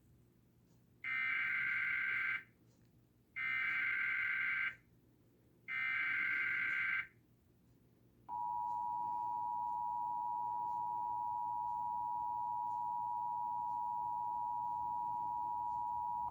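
Emergency Alert System tones: three short, identical bursts of warbling digital data (the SAME header), then the steady two-tone EAS attention signal held for about eight seconds before it cuts off. They announce a severe thunderstorm warning.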